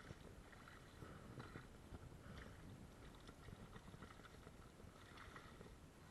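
Near silence: faint, muffled rustling with scattered small knocks, dulled by a waterproof camera case.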